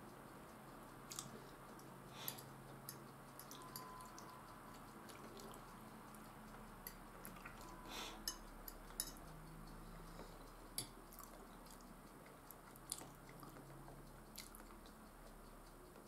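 Quiet chewing of fried potatoes, with a fork clicking and scraping against the bowl several times.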